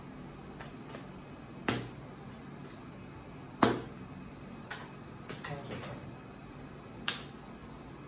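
Sleeved trading cards being slapped down onto a playmat during play: about five sharp, irregular snaps, the loudest about three and a half seconds in.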